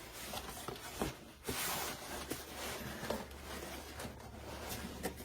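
Rustling and scraping of toner-cartridge packaging being handled and pulled open, with a few small clicks and knocks.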